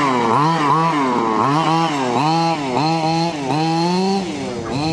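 HPI Baja 5SC 1/5-scale RC truck's two-stroke gas engine revving up and down over and over as the throttle is worked, with a brief drop in revs partway through.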